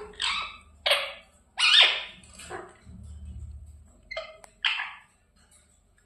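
Pet parrot giving about six short, harsh squawks, one after another over the first five seconds.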